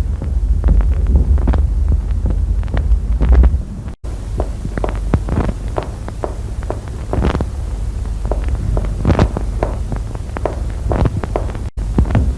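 Recorded chest percussion over a pleural effusion: a rapid series of finger taps on the chest, starting from the area of absolute dullness on the affected side. A low hum runs under the first few seconds and stops at a brief dropout about four seconds in.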